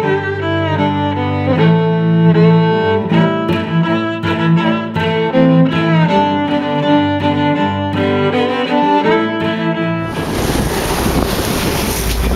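Instrumental background music with held, stepping string notes. About ten seconds in, the music cuts off abruptly to the steady rush of wind and water from the moving boat.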